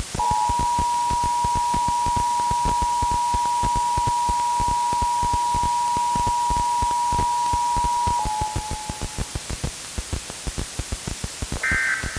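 Emergency Alert System attention signal: two steady tones sounding together for about eight seconds and cutting off, over crackling static. Static carries on after it, and a short burst of digital data tones begins near the end.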